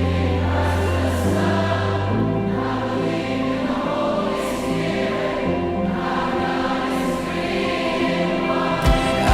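Background music: a choir singing held chords, gospel in style, with drum beats coming in near the end.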